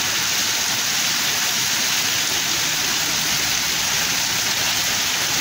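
Heavy monsoon rain pouring down steadily, an even hiss of the downpour on the road, with vehicle tyres swishing through standing water.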